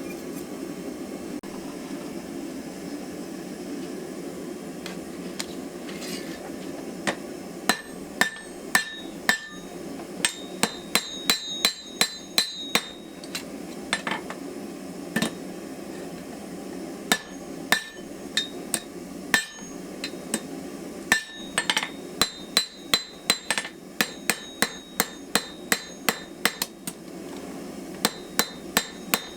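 Hand hammer striking hot steel on an anvil while a knife blade is forged into a curve. The blows come in quick runs, each with a bright metallic ring, separated by short pauses, starting a few seconds in after a stretch with only a steady low rushing.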